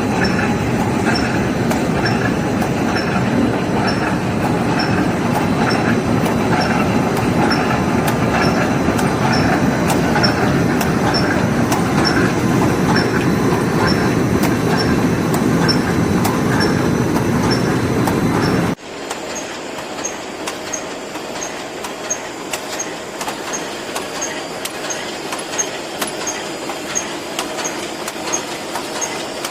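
Automatic wire mesh welding line running: a loud, steady mechanical clatter with regular high ticks about twice a second. About two-thirds of the way through, the noise abruptly becomes quieter while the ticking goes on.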